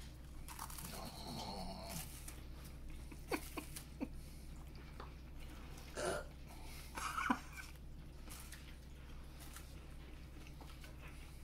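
Soft crunching and chewing of a crumbly chocolate cream-filled wafer cookie, with a few faint mouth clicks and two brief louder mouth sounds about six and seven seconds in.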